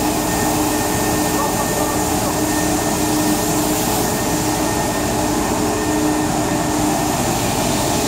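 Cyclone-filter industrial vacuum cleaner running steadily, its hose and floor nozzle sucking up spilt powder paint, a constant rush of air with a low steady hum.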